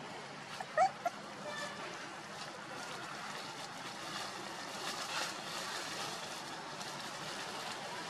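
Puppy giving two short, high whimpers about a second in, over a steady background hiss.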